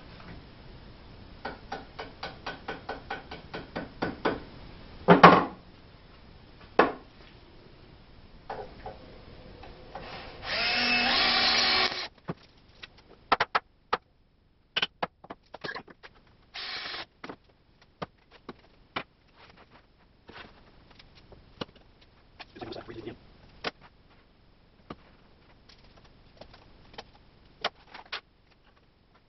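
Cordless drill-driver running steadily for about a second and a half, about ten seconds in. Before it comes a run of quick clicks and a sharp knock, and after it scattered small clicks and knocks of tools being handled on a wooden bench.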